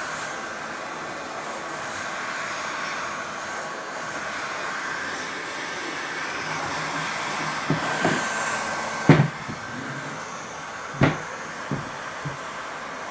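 Skil heat gun blowing steadily with a thin fan whine, heating the headlight seam to soften the lens sealant. In the second half there are several sharp knocks, the loudest about nine seconds in, as the plastic headlight housing is handled and turned over.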